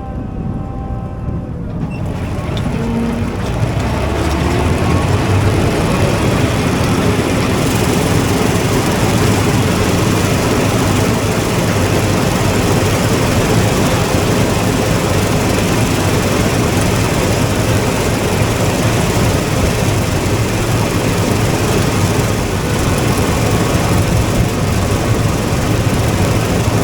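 Combine harvester running while cutting and threshing soybeans: a steady mechanical noise with a low hum, growing louder over the first few seconds and then holding even.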